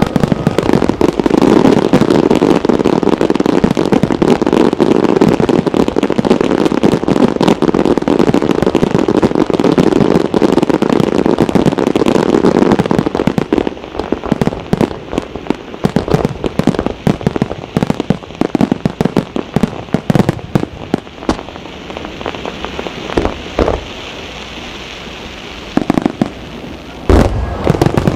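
Aerial fireworks: a dense, loud barrage of crackling and popping shells that thins out about halfway to scattered bangs and crackles. A brief hiss comes later, then one loud low boom near the end.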